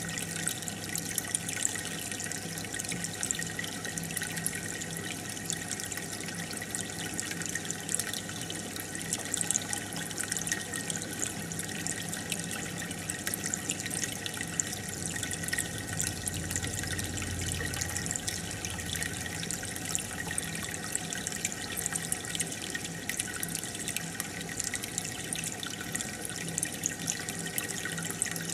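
Aquarium water bubbling and trickling steadily from the tank's aeration and filter, a dense fizz of small bubbles breaking, over a faint steady pump hum.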